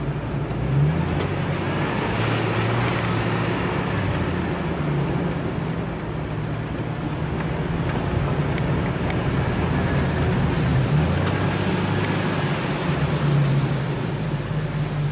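Jeep Cherokee XJ's engine running at low revs off-road, heard from inside the cab, its pitch stepping up and down every few seconds as the throttle changes. Scattered light ticks and rattles sound over it.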